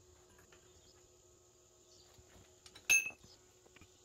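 A single sharp metallic clink about three seconds in, with a short ring, from steel stock knocking against the steel-tube frame. A few lighter ticks come just before it, over a faint steady hum.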